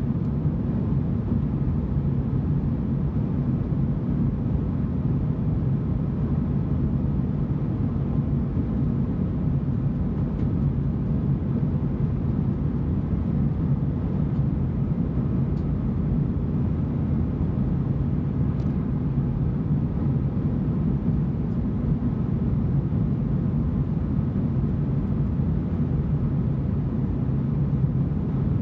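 Steady cabin drone of a Boeing 737-900ER airliner in flight: a low, even rumble of its two CFM56-7B engines and the air rushing past the fuselage, heard from a passenger seat.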